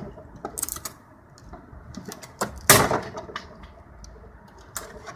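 Several sharp knocks and one louder bang a little before the middle, over a steady background hiss.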